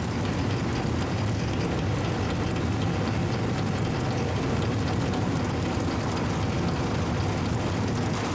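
Steady, even low rumble of vehicle or machinery noise with no distinct tone or rhythm.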